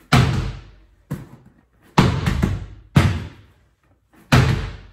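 A volleyball slammed down hard onto the floor again and again, four loud smacks roughly a second apart, each ringing briefly in the small room, with lighter thuds between them.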